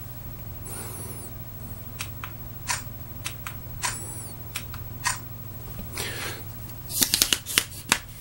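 Smartphone camera shutter going off several times as selfies are taken with a Bluetooth selfie stick, mixed with clicks and rattles of the stick and its phone clamp being handled. Two brief high chirps fall in pitch early on and midway, and a quick flurry of clicks comes near the end, over a faint steady hum.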